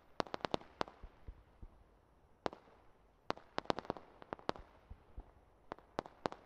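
Fireworks going off: runs of sharp, fairly faint bangs and pops in quick succession. There is a cluster right at the start, a single bang about two and a half seconds in, another cluster from about three to four and a half seconds, and a last cluster near the end.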